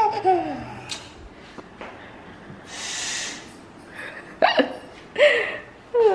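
A child's short giggles and squeaky vocal sounds, each a brief falling pitch, with a hiss about three seconds in.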